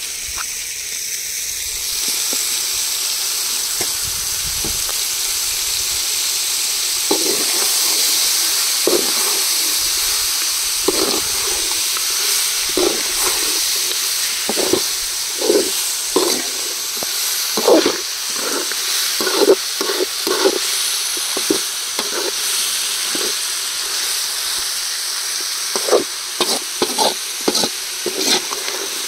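Halved shallots frying in hot oil in a pan with a steady sizzle. From several seconds in, a ladle stirs them, scraping the pan in short, irregular strokes about one or two a second.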